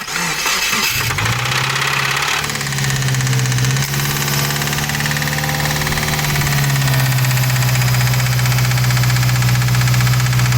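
2017 Subaru WRX's turbocharged 2.0-litre flat-four engine starting, catching about a second in and settling into a steady idle. It has a knocking sound that the owner takes for engine knock.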